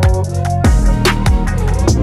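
Electronic background music with heavy bass and a steady drum beat, about three hits every two seconds.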